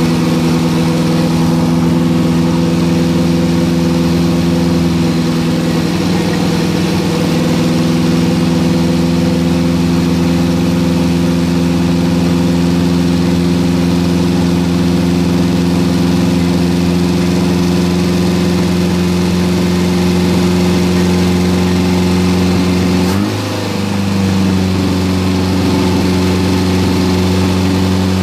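1974 Toyota Corolla's four-cylinder engine idling steadily, running again after some 25 years out of use. Near the end the idle briefly stumbles, then settles at a slightly higher speed.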